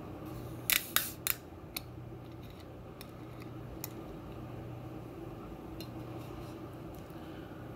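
Metal crown cap on a glass malt liquor bottle being gripped and twisted off by hand: a quick run of sharp clicks and taps about a second in, then a few lighter ticks. A low steady hum lies underneath.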